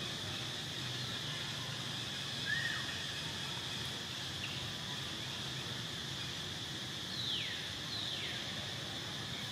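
A steady, high-pitched drone of insects, with a few short calls: one that rises and falls a couple of seconds in, and two quick downward-sweeping calls near the end.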